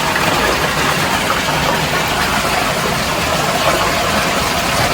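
Steady rushing of flowing water, an even noise at a constant level throughout.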